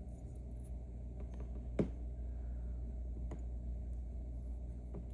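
A few sharp clicks and taps of small lock parts being handled while a lock is taken apart, the loudest about two seconds in and another about a second and a half later, over a steady low hum.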